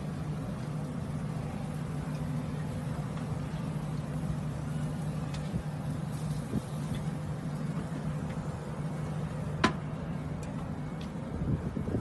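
Ford GT's supercharged V8 idling steadily from its centre exhaust, with one sharp click about ten seconds in. The first throttle blips begin right at the end.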